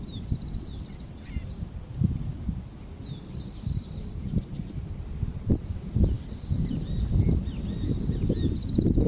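Several birds chirping, with rapid trills and short downward-sliding calls, over a low gusty rumble of wind on the microphone that grows louder near the end.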